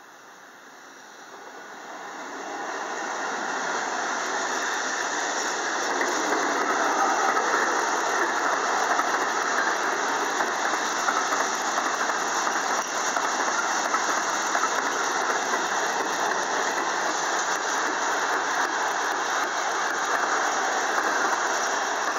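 Freight train of tank wagons passing close by, its steel wheels rolling on the rails. The noise builds over the first few seconds as the train arrives, then stays loud and steady.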